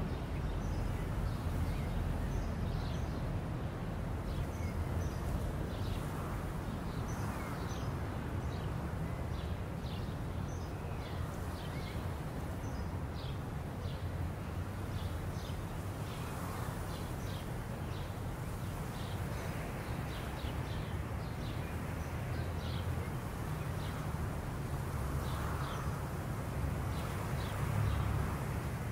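Outdoor ambience: small birds chirping in many short calls throughout, over a steady low rumble.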